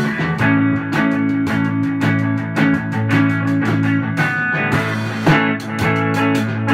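Instrumental rock jam: a Fender Stratocaster electric guitar through a Fender Princeton Reverb amp plays held, ringing notes over a drum kit keeping a quick, steady beat.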